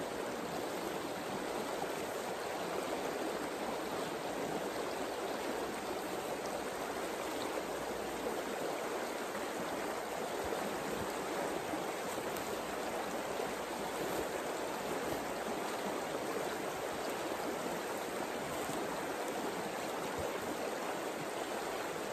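Shallow river running steadily, a constant even rush of flowing water.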